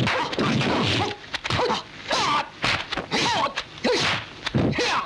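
Fighters' short shouts and yelping cries in quick succession, mixed with the sharp slaps of punches and kicks, a dubbed kung fu fight soundtrack.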